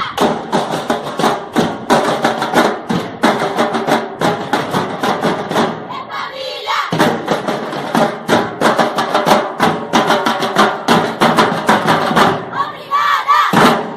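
Percussion group playing drums in a fast, steady beat, with voices over it; the drumming breaks off briefly about halfway through, then picks up again.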